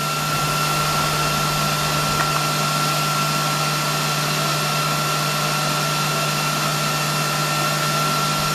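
Steady whir of a running fan, with a constant low hum and a thin high tone under it.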